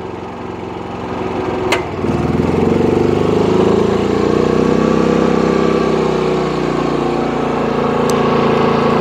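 Predator 9500 inverter generator's 459cc gasoline engine running, a switch click about two seconds in as a heater is switched on, then the engine speeding up and running louder and steadily as eco mode throttles up to carry the heavy load of about 7 kW.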